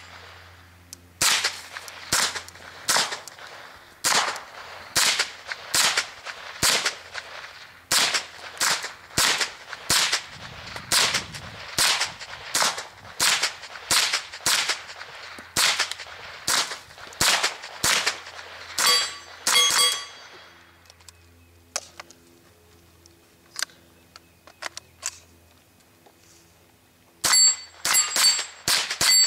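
Ruger 10/22 semi-automatic .22 rimfire rifle fired shot after shot, about one to two shots a second, with steel targets ringing as they are hit. After about twenty seconds the firing stops for several seconds, with only a few faint clicks, then a fast string of shots starts near the end.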